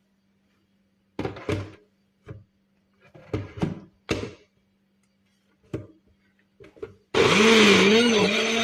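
A few sharp knocks and clatters, then about seven seconds in a countertop blender motor starts suddenly, its pitch wavering for a moment as it takes up the chunks of lemon, ginger, onion and parsley in water, then running steadily.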